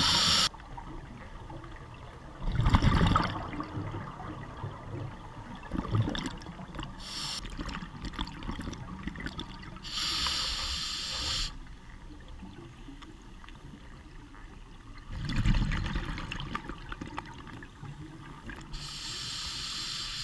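Scuba diver breathing underwater through a regulator: bubbling exhalations (three, the loudest) and hissing inhalations, each breath several seconds apart.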